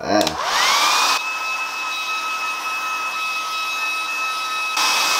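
Handheld hair dryer switched on, its motor whine rising quickly to a steady pitch over the rush of its blower, then running steadily.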